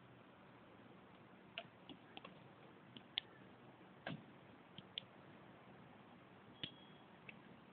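Near silence with faint hiss, broken by about a dozen short, irregular clicks and ticks, one slightly fuller knock about four seconds in.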